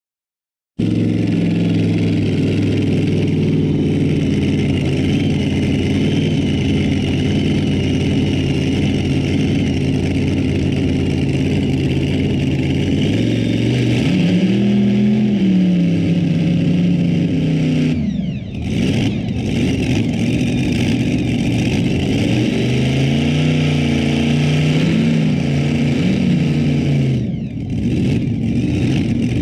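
Light modified pulling tractor's engine running loud and hard, cutting in suddenly about a second in. Its note rises and falls twice, with two brief drops in the revs.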